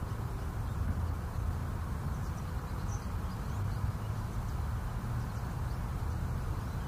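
Steady low rumbling background noise with a few faint, short high chirps.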